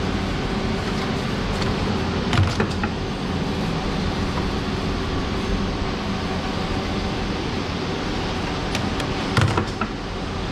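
Automatic curry puff (karipap) making machine running with a steady mechanical hum from its motor and chain conveyor, with two sharp knocks, one about two seconds in and another near the end.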